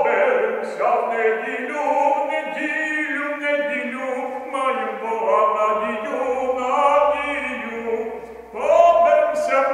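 Singing in long, slow held notes, with a short break about eight and a half seconds in before the singing comes back louder.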